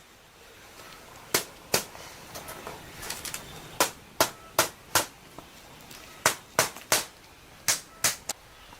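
Hammer blows: about a dozen sharp, hard strikes in runs of two to four, roughly 0.4 s apart, with a few lighter taps in between.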